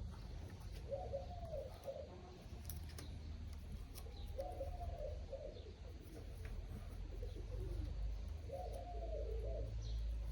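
Pigeons cooing: three low, rolling coos about a second in, near the middle and near the end, over a steady low hum.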